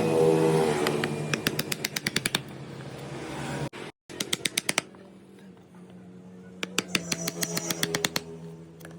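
A power tool's motor whirring and winding down in pitch, with runs of rapid clicking, then cutting off abruptly. It then runs again at a steady hum, with another run of rapid clicks.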